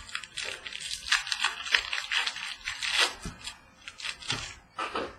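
Trading-card packaging and cards being handled: irregular crinkling, tearing and rustling as packs are opened and cards are sorted.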